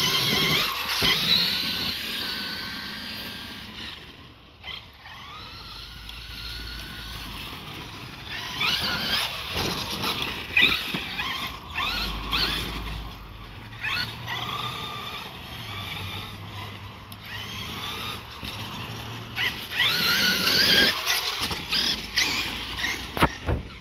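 Traxxas E-Revo electric RC monster truck driving on a dirt track: its motor and gearing whine rises and falls in pitch with the throttle, growing louder as it comes close. A few sharp knocks come through along the way.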